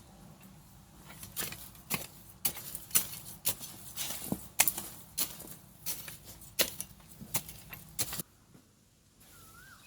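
Irregular sharp clicks and knocks, about two a second, stopping suddenly about eight seconds in; a short warbling bird whistle near the end.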